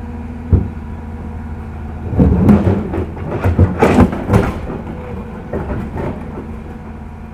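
L&T PC200 excavator's diesel engine running steadily, with a sharp knock about half a second in. From about two seconds in to about four and a half there is a burst of heavy scraping and clattering of rock as the bucket works stone.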